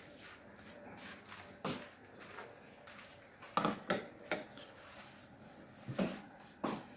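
Light knocks and clinks of dishes and cutlery, about six separate taps spread through a quiet stretch.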